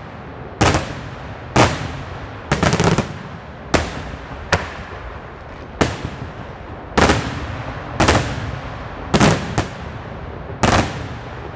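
Daytime fireworks: aerial shells bursting overhead in sharp bangs, about one to two a second with some in quick doubles and triples, each followed by a short rumbling echo.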